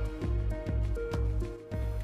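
Background music with a steady beat, about two beats a second, and a simple melody of held notes.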